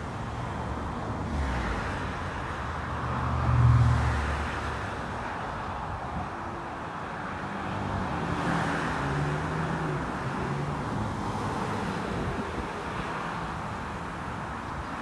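Road traffic: a motor vehicle passes with a low engine hum, loudest about four seconds in, over a rush of noise that swells and fades as further vehicles go by.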